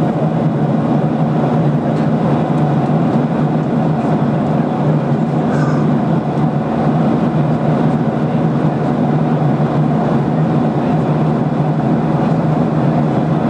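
Steady drone of a Boeing 737-800 heard from inside the passenger cabin: its CFM56 engines and the airflow over the fuselage, holding an even level.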